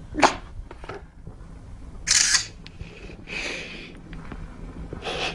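Handling noise from a phone camera being moved: four short rustling hisses, the loudest about two seconds in.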